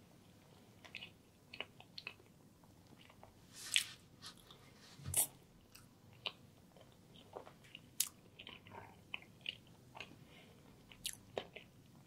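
A person chewing and biting food close to the microphone: moist mouth clicks and smacks, with a few sharper crunches scattered through, the strongest about four, five, eight and eleven seconds in.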